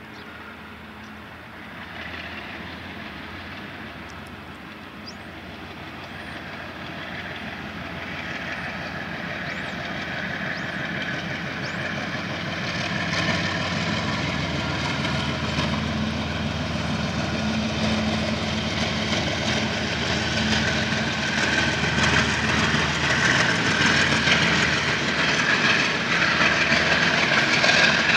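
KiwiRail freight train hauled by five diesel-electric locomotives approaching and passing, the locomotive engines growing steadily louder as the train comes closer. The train has only just started out, so the locomotives are working under power.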